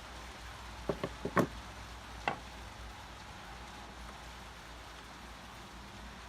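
Steady hiss of heavy rain, with four quick sharp knocks about a second in and one more a second later.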